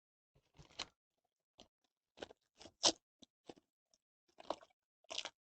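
Trading card packs and cards being handled, in short irregular crinkles and rustles.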